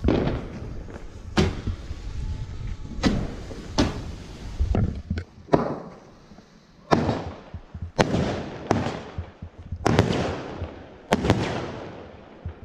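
Thunder King firework cake firing its shots into the air: about ten sharp bangs at uneven spacing, each trailing off in an echo.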